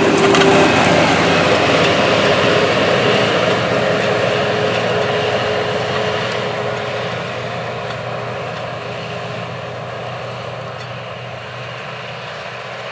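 John Deere 9630T tracked tractor's 530 hp diesel engine running steadily under load while pulling a 35-foot high-performance disk through the field, growing gradually fainter as the tractor moves away.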